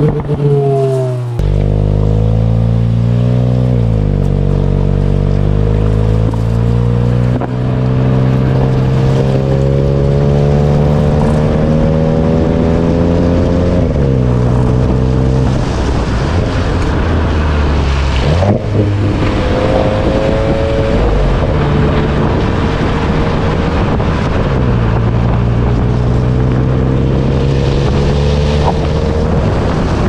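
2023 Volkswagen Golf GTI's turbocharged 2.0-litre four-cylinder pulling under acceleration. The engine note climbs steadily for several seconds at a time, then falls quickly at each upshift, repeatedly through the gears.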